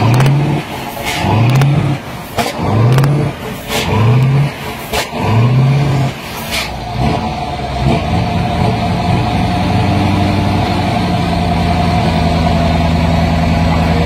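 MAN TGX V8 diesel truck engine revved in about six quick blips, roughly one a second, each rising in pitch and dropping back. About seven seconds in it settles to a steady idle.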